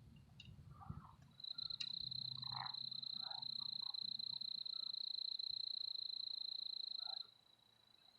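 A high-pitched animal trill, held steady for about six seconds and stopping shortly before the end, with faint scattered sounds beneath it.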